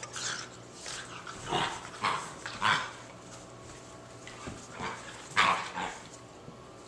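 Two Border Collie–Staffordshire terrier cross puppies at play, giving a string of short yips and barks, the loudest about five and a half seconds in.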